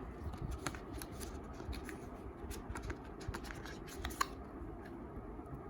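Hands handling packaging and small photo cards: scattered light clicks and rustles, with one sharper click a little after four seconds.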